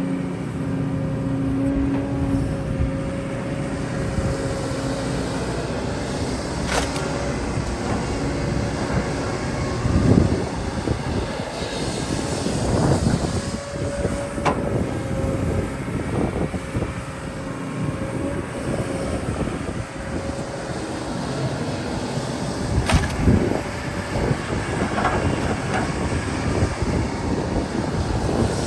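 Excavator's diesel engine and hydraulics working under load. It runs as a continuous heavy rumble under a steady whine, swelling now and then, with a few sharp metallic knocks.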